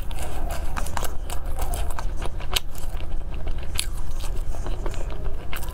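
Close-miked chewing of a meatball, with many scattered sharp wet mouth clicks over a steady low hum.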